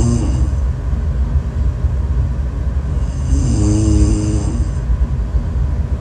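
A person snoring in sleep: a pitched snore that rises and falls trails off at the very start, and another comes about three and a half seconds in, over a constant low rumble.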